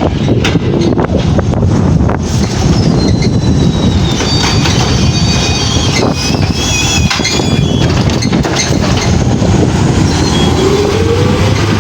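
Garbage truck working: the engine running under a steady low rumble, with high metal squeals in the middle and scattered knocks and bangs as a bin is handled, and a rising whine near the end. Wind buffets the microphone.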